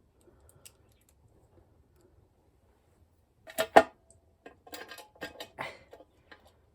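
Metal clinks and knocks of bolts and hand tools being handled while the last bolts go into a motorcycle skid plate: a few faint ticks, two sharp knocks about three and a half seconds in, then a run of smaller clicks and rattles.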